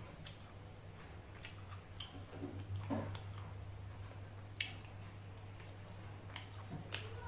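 Quiet chewing of rice and somay eaten by hand, with scattered short mouth clicks and wet smacks over a steady low hum.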